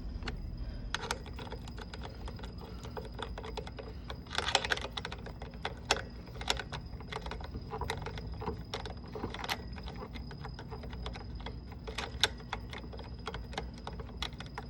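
Socket ratchet clicking in quick irregular runs as the bolts holding the carburetor to a small Briggs & Stratton mower engine are run in and tightened, with a few louder knocks of tool on metal.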